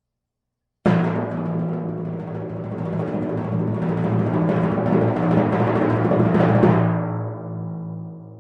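Timpani roll: it starts abruptly about a second in and swells steadily louder, ending on a hard final stroke near the end that is left to ring out.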